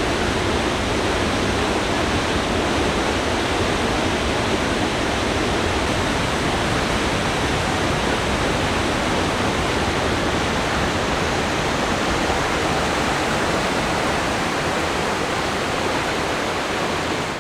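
High Force waterfall on the River Tees: a loud, steady rush of falling water, heard close up.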